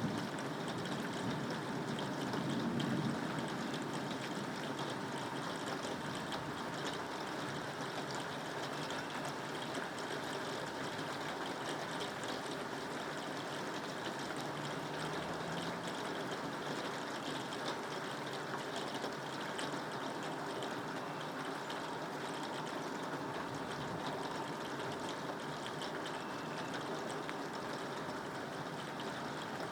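Steady rain falling, with a low rumble of distant thunder in the first few seconds.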